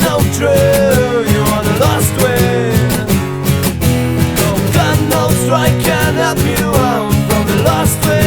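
Acoustic punk song: strummed acoustic guitar keeps a steady rhythm under a gliding melody line.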